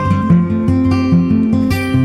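Background music: guitar-led track with plucked notes and a steady bass line.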